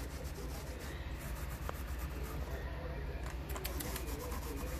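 Soft rubbing and scuffling with a few faint clicks: a Geoffroy's cat kitten scrambling against the fabric-covered platform of a cat tree, over a steady low hum.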